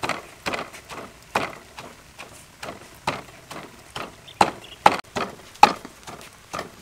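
Stone pestle pounding ingredients in a stone mortar, steady knocks about two a second, a few louder strikes around the middle.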